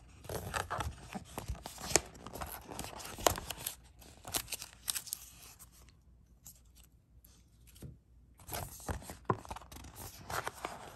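Paper-board packaging of a watch box being handled: scrapes, rustling and sharp clicks as the band insert and cables are moved about, going quiet for a couple of seconds in the middle.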